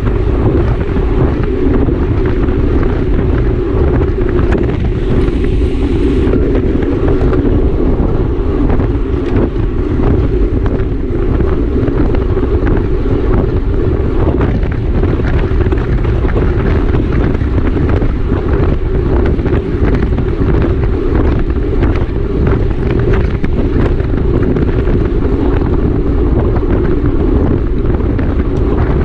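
Steady, loud wind noise buffeting the microphone of a camera carried on a racing bicycle at speed.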